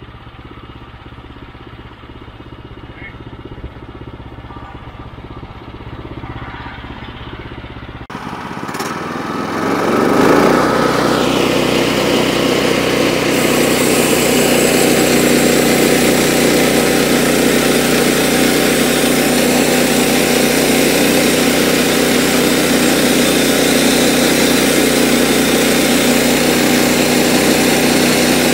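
Kohler engine on a Woodland Mills HM122 portable band sawmill: a faint low hum at first, then throttled up about eight to ten seconds in to a loud, steady run as the band blade cuts along a squared timber.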